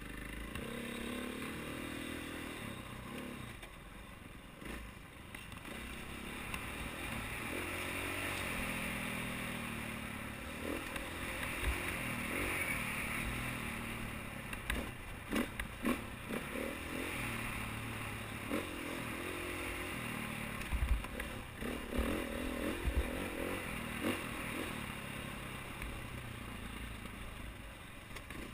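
KTM 450 XC-W dirt bike's single-cylinder four-stroke engine running and revving up and down while riding rough singletrack. Sharp knocks and clatter from the bike over bumps come through in the middle and later part.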